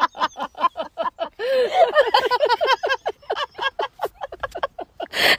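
A high-pitched voice making quick, short sounds, about five a second, with a brief burst of noise near the end.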